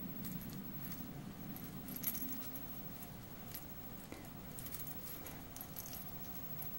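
Green-cheeked conure mouthing and carrying a hollow plastic toy ball: light, irregular jingling and clicking, the sharpest click about two seconds in, over a steady low hum.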